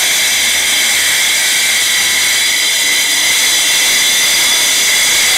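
Eibenstock EMF 150 twin-blade wall chaser running steadily, its two blades cutting a groove into the wall: a loud, high, unbroken whine with several steady tones.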